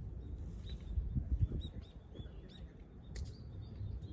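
Small birds chirping with short, high, repeated calls over a low rumble, with a few dull low thumps about a second in.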